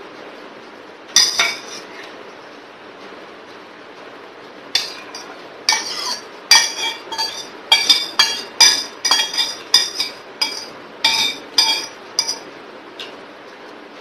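Stainless steel bowl clinking against a spoon and the plate as it is tipped and tapped to empty okra masala out: one clink about a second in, then a quick run of ringing metallic clinks, two to three a second, stopping shortly before the end.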